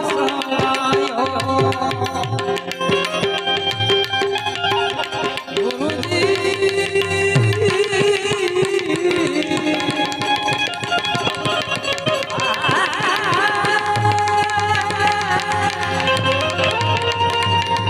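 Instrumental interlude of a Gujarati bhajan: tabla playing a steady, busy rhythm under a held harmonium melody.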